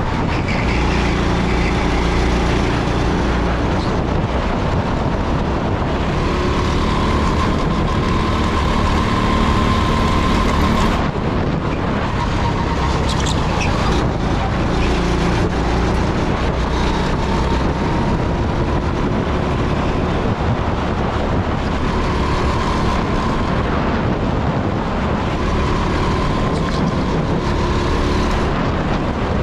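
Rental go-kart engine running at high revs, heard from onboard; its note rises and falls as the kart accelerates and slows through the corners, dipping briefly about eleven seconds in.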